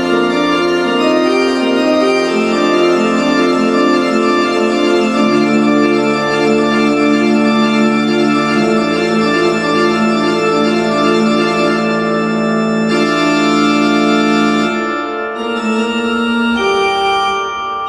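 Electronic keyboard played on an organ voice: sustained organ chords, each held for several seconds, changing a few times.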